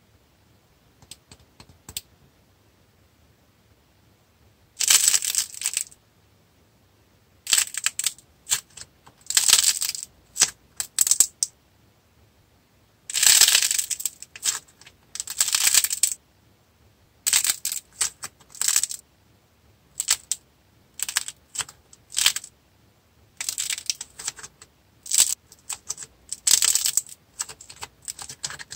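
Hardened clay sculpture being squeezed and broken apart by hand, crackling and crunching as it cracks. A few faint clicks come first, then from about five seconds in there are short clusters of crackling with brief pauses between them.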